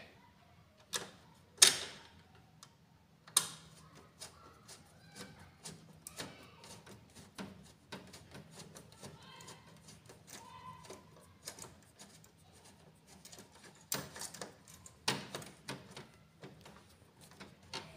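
A small screwdriver and screw working against a laser printer's plastic rear cover, making scattered sharp clicks and knocks with faint ticking and scraping between them. The loudest click comes about a second and a half in. The screw is the wrong one for the hole and is not holding.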